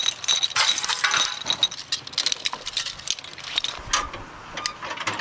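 Metal cartridges and belt links clinking and rattling as ammunition is linked into a belt by hand, a run of short sharp clinks that are densest in the first second or so and then come more sparsely.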